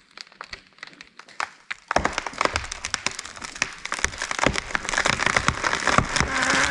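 A felled tree going over: sharp cracks and snaps of wood, building from about two seconds in into a dense, rising crackle of limbs breaking as it crashes through the surrounding branches.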